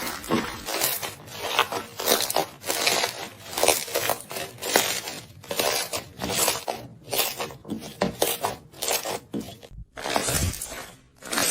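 Slime being squeezed and pressed by hand: a run of short squelching, crackling sounds, roughly two a second, some louder than others.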